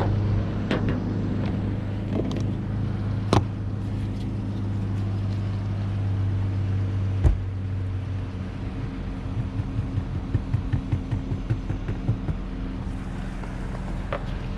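A steady low mechanical hum, like an idling engine, with a few sharp clicks and knocks from tools being handled. Later comes a run of quick, uneven low thumps.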